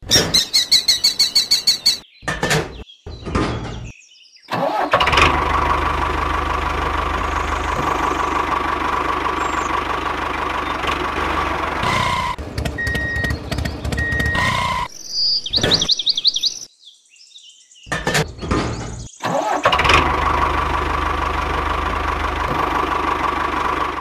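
Small diesel engine of a walking tractor running steadily with a low rumble, after a quick rapid rattling as it starts. It breaks up and stops for a moment in the middle, then starts running again.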